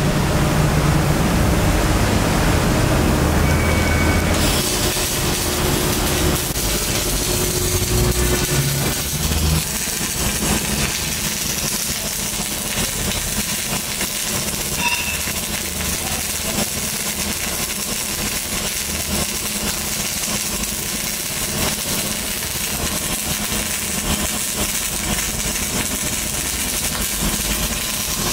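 Electric arc welding: the arc gives a steady crackling hiss, with a low hum beneath it that is stronger in the first ten seconds or so.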